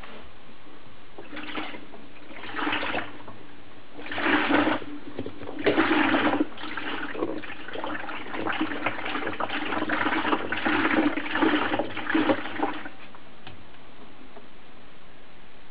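Whirlpool Cabrio top-load washer running, with water gurgling and sloshing in its tub over a low motor hum in irregular surges; both stop a few seconds before the end.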